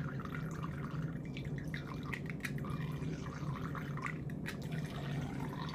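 A thin stream of milk from a pin-pricked creamer pot trickling and dripping into a mug of tea: faint small drips and ticks over a steady low hum.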